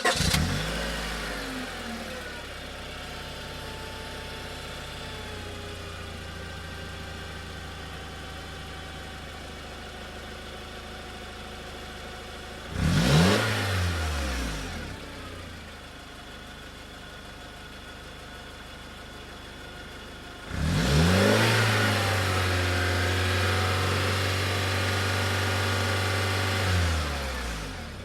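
Car engine settling from a start-up flare to a steady idle, blipped once about halfway through, then revved again and held at raised revs for about six seconds before dropping back to idle.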